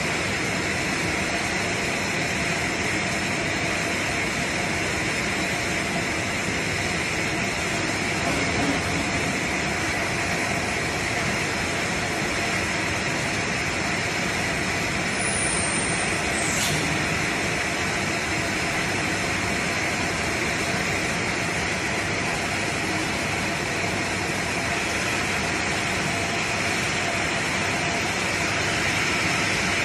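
ZJ-2500 container sterilizing machine running with its chain conveyor: a steady, even mechanical noise that does not change. A brief high chirp sounds about halfway through.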